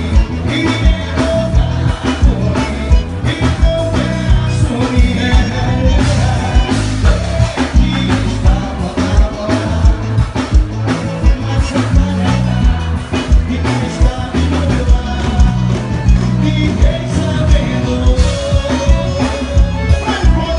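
Live forró band music played loud through a stage sound system, with a male singer over a steady, driving drum beat.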